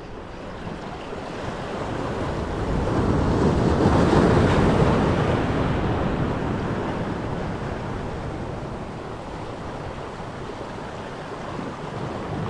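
Sea waves washing over a rocky shore: one swell builds to its loudest about four seconds in, then slowly ebbs away.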